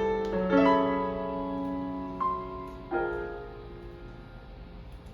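Solo jazz piano playing slow sustained chords, each struck and left to ring and fade, with a new chord about half a second in, a single high note at about two seconds and another chord about three seconds in, fading softer towards the end.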